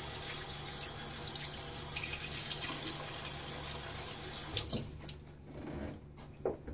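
Bathroom sink tap running water into the basin. It stops about four and a half seconds in, followed by a few light knocks.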